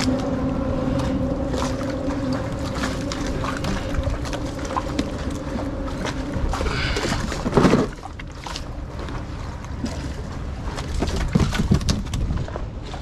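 A steady low hum that fades out in the first couple of seconds, over water and wind noise around a kayak, with scattered clicks and knocks as gear and fish are handled in the boat; one louder rustle or knock comes a little after the middle.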